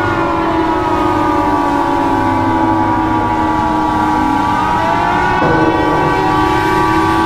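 Several sirens and horn-like tones sounding together. Steady pitches are overlaid by slow pitch slides that fall and then rise.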